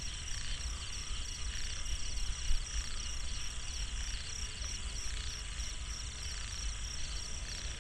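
Night-time chorus of calling frogs and insects: a steady, rapidly pulsing high trill, over a low steady rumble.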